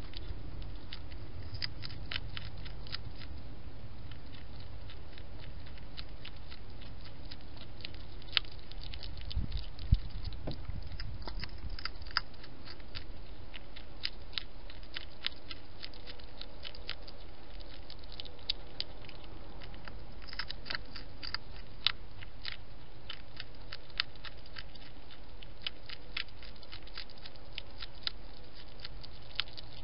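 Wild hedgehog eating dry food pellets from a dish: a steady run of small, irregular crunches and clicks over a constant background noise, with one louder knock about ten seconds in.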